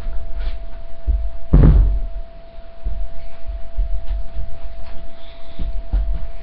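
Dull low thumps and knocks, with one loud knock about one and a half seconds in, over a faint steady electronic whine.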